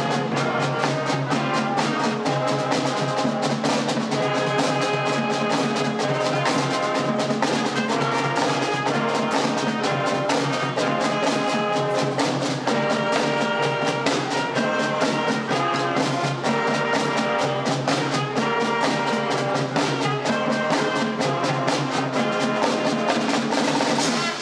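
Youth show band playing: brass instruments carrying a melody of held notes over a steady low bass note and snare and bass drums keeping a regular beat.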